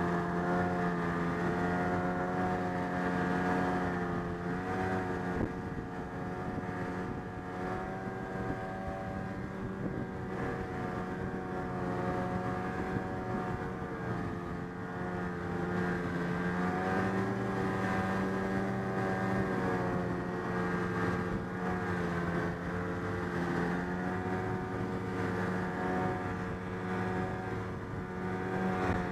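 Snowmobile engine running steadily while riding along a trail, its note rising and falling a little as the throttle changes.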